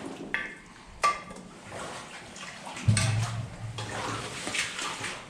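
Wading through deep water: splashing and sloshing with each step, with sharper splashes about a second in and about three seconds in.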